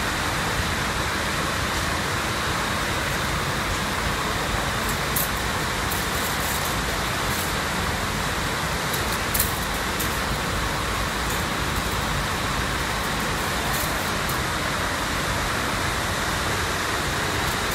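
Steady mechanical din of weaving-mill machinery. A few faint light clicks rise above it, the sharpest about nine seconds in, as a metal drawing-in hook works through the heddle wires.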